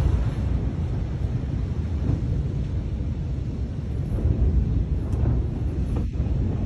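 Deep, steady rumbling in the seconds after a massive explosion, easing from the louder blast just before and then holding, with wind buffeting the microphone.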